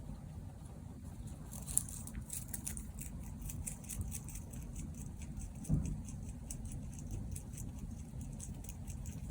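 Mini Rex rabbit making faint, quick, irregular clicking for several seconds, with one soft thump about six seconds in.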